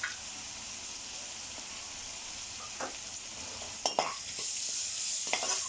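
Chopped onions sizzling in hot oil in a kadhai, stirred with a perforated steel skimmer that scrapes and taps against the pan a few times in the second half. The sizzle grows louder about four seconds in.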